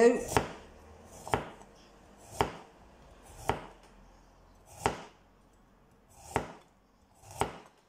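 Kitchen knife slicing a raw carrot into rounds on a plastic chopping board: seven sharp knocks of the blade on the board, about one a second.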